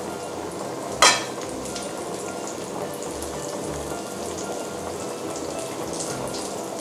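Flour-coated chicken pieces deep-frying in hot oil in a pan: a steady sizzle with fine crackles. About a second in there is a single short, sharp click.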